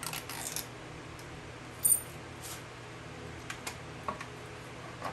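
Hands handling an RC car's plastic chassis parts and its ESC: light rustling and a scattering of small clicks and taps, with one short, sharp crackle about two seconds in that is the loudest sound. A faint steady hum runs underneath.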